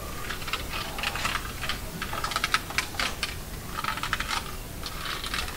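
Rapid, irregular clicking and tapping in clusters, like small hard objects being handled on a table.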